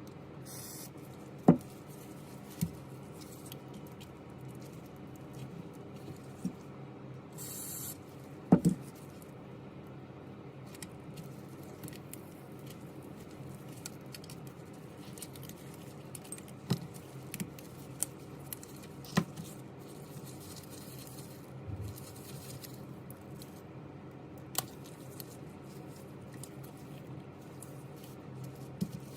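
Small hand tools clicking and tapping on the parts of an iPhone 11 Pro under repair, about a dozen sharp clicks spread out, the loudest about a second and a half in and about eight and a half seconds in, over a steady low hum. A brief hiss comes just before the second loud click.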